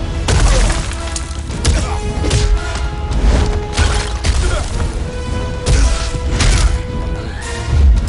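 Action-film battle soundtrack: orchestral score with held notes under a run of heavy impacts and crashes, roughly one hit every second.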